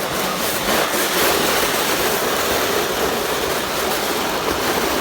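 Sled sliding fast down an icy street: a steady rushing and scraping noise from the sled on the ice, with wind buffeting the microphone.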